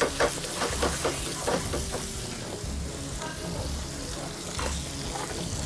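Vegetables frying and sizzling in a pan over a gas flame, stirred with occasional clinks and scrapes of a utensil.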